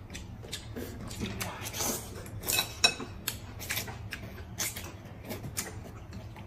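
Eating sounds: noodles slurped from a soup bowl, with chopsticks clicking against bowls and dishes. A sharp tap about three seconds in is the loudest.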